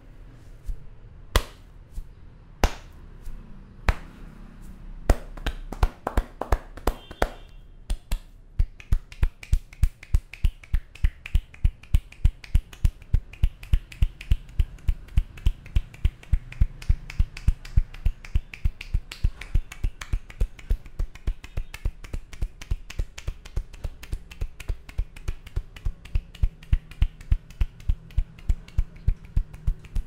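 Hair cracking during a head massage: tufts of hair are pulled and snapped between the fingers, each pull giving a sharp crack. A few spaced cracks at first, then a fast, even run of about three cracks a second.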